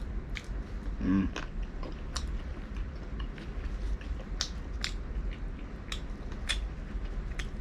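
Close-miked eating sounds of a person chewing grilled squid: scattered sharp mouth clicks and smacks, with a brief low hum about a second in, over a steady low background hum.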